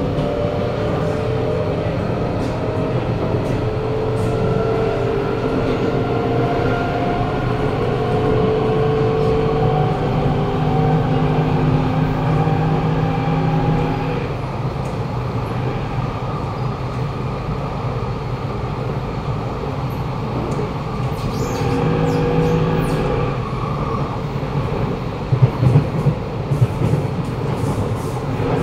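Kawasaki Nippon Sharyo C751B metro train heard from inside the carriage. Its traction motors give a strong robotic whine in several slowly rising tones as it picks up speed, then cut out about halfway through while the train runs on. The motor tones come back briefly later, and a few sharp clicks sound near the end.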